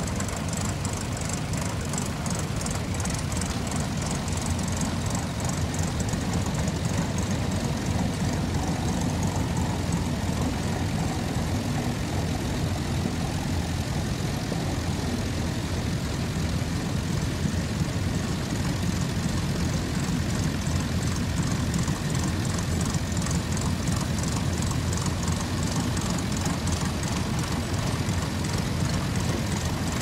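Diesel farm tractors running steadily under load as they pull ploughs through stubble, with a fast, faint ticking in the background.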